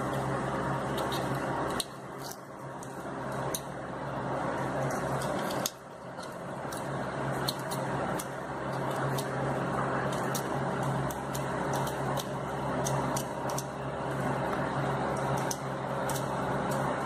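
Small irregular clicks of an eggshell being tapped and chipped open at the top with a small metal tool, a raw egg opened so its shell stays whole. The clicks sit over a steady hiss and a low hum.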